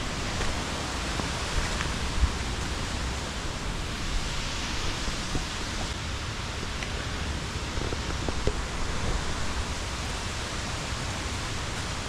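Steady rushing of waterfall water, an even hiss without pauses, with a couple of faint knocks.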